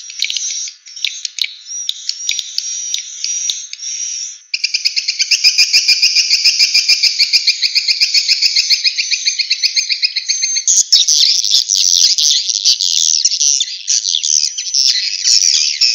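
Swiftlet calls: loud, high-pitched chirping and twittering that turns into a fast, evenly pulsing trill about four and a half seconds in, then into dense overlapping twittering near eleven seconds. It is a swiftlet lure call track of the kind played to draw swiftlets into a bird house.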